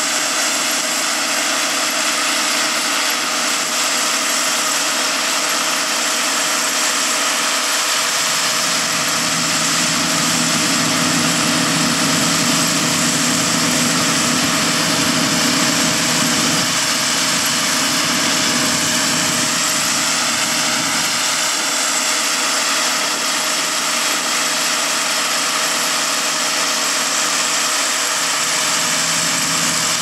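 A John Deere S650 combine and a John Deere 8285R tractor running steadily side by side as the combine harvests corn and augers the grain into a cart. A deeper hum joins in about eight seconds in and fades out about twenty seconds in.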